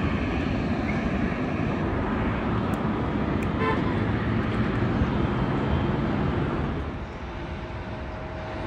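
Jet airliner engine noise: a steady, deep rumble that drops off about seven seconds in as the aircraft moves away.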